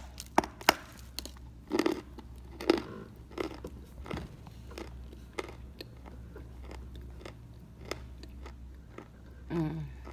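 Biting off a piece of Belgorod edible chalk, a few sharp crunches, then chewing it with crisp crunches that grow fewer and softer over several seconds. A brief voiced sound near the end.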